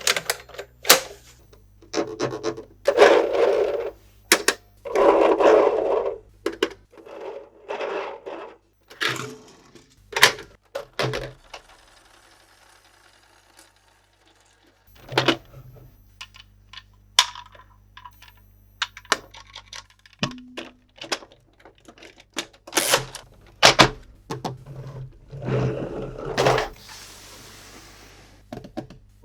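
Hands unboxing plastic toys: irregular clicks, taps and knocks of hard plastic, with a few stretches of packaging crinkling and rustling.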